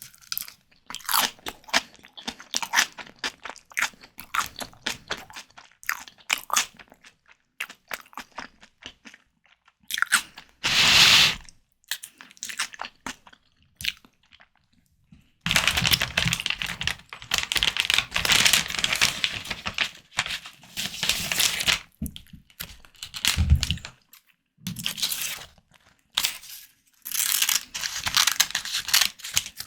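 Close-miked chewing and biting of white tiger prawns: quick crunchy bites and wet mouth sounds that come in dense stretches with short pauses between them.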